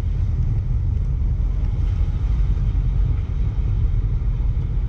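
Ford F450 Power Stroke diesel truck running at low speed, a steady low rumble heard from inside the cab.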